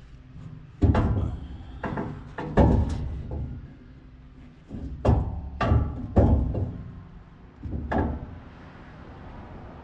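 Heavy metal toolbox knocking and thudding against its mount on a rollback tow truck, in about eight irregular bangs as it is shoved in for a test fit that is too tight.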